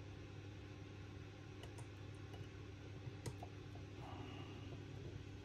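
Faint small clicks of a pin vise hand-drilling a fine hole into a plastic model ship hull, over a steady low hum; the sharpest click comes a little over three seconds in.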